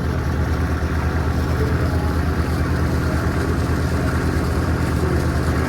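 Steady low drone of a river ferry boat's engine running underway, with a hiss of wind and water over it.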